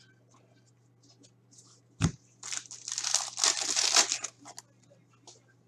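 A trading-card pack wrapper crinkling and tearing as it is ripped open, starting with a single knock about two seconds in and dying away after about two seconds.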